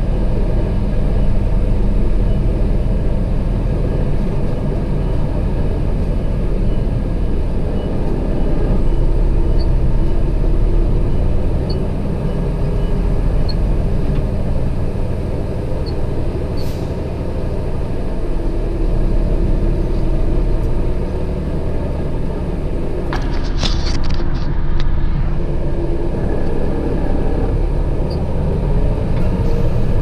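A truck engine running steadily with a low rumble, heard from inside the cab while the truck is maneuvered at a loading dock. A short burst of higher-pitched noise comes about three-quarters of the way in.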